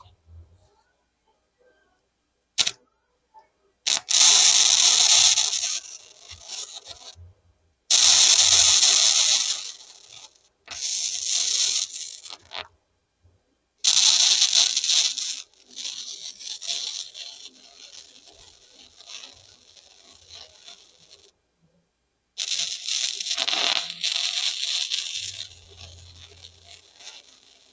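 Arc welder crackling through a series of short welds on a metal yard windmill: about five bursts of one to three seconds each, with silent pauses between them.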